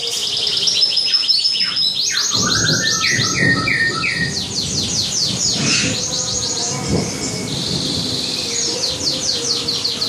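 Several canaries singing at once, overlapping rolls of rapid repeated high notes and trills.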